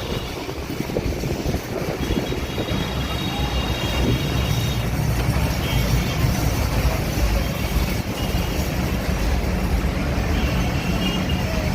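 A train running through a railway station: a steady low rumble that grows louder about four seconds in, with thin high squeals coming and going.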